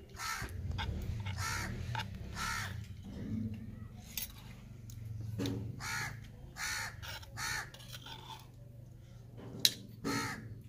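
Crows cawing, a string of short harsh caws about a second apart with a lull in the middle. A single sharp click sounds near the end.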